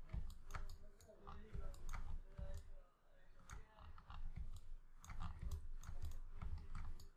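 Irregular clicks from a computer mouse and keyboard, a few a second, with dull low thumps.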